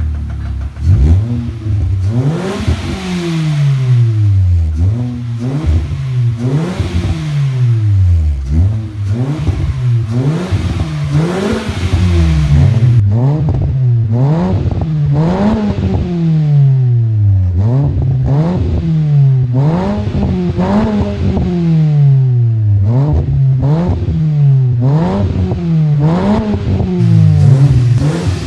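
Hyundai Accent's four-cylinder engine revved through an aftermarket catback exhaust. There are a couple of longer revs early, then quick blips about once a second, the pitch rising and falling back to idle each time.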